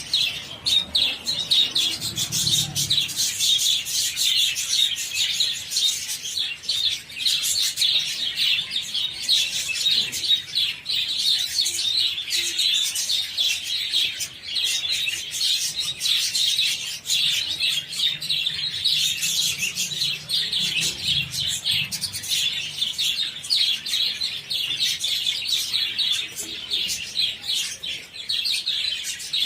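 A large flock of budgerigars chattering and chirping continuously, many birds calling over one another.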